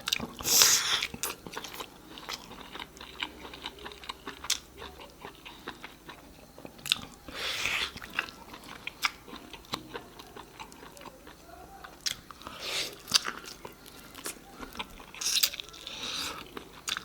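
Close-miked eating: a person chewing and biting food, with many small wet mouth clicks and four louder bites spread through.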